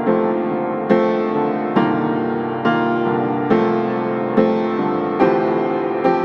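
Slow background piano music: sustained chords struck about once a second.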